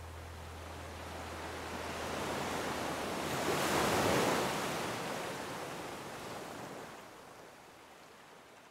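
A rushing, surf-like noise that swells to a peak about four seconds in and then slowly fades away.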